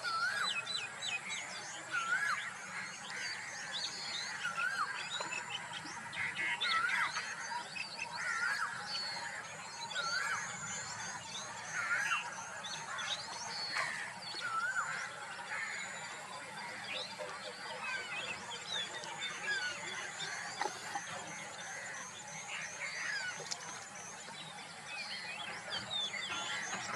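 Several wild birds calling at once: a short hooked whistle repeated every second or two, runs of rapid high-pitched trills, and scattered chirps.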